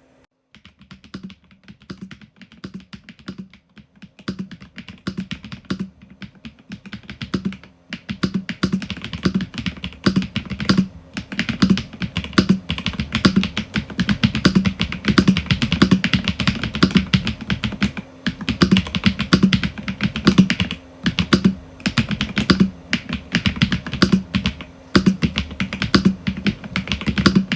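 Typing on a Royal Kludge S98 mechanical keyboard as a sound test: light, scattered key presses at first, then from about eight seconds in a fast, steady run of louder keystrokes.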